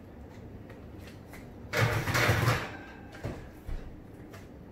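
Kitchen oven door being worked: a loud clattering scrape lasting under a second about two seconds in, followed by two light knocks.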